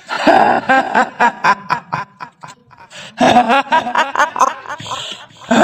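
A woman's voice doing the cackling 'hihihi' laugh of the kuntilanak, the female ghost of Indonesian folklore, in two bouts of rapid laughter with a pause of about a second between.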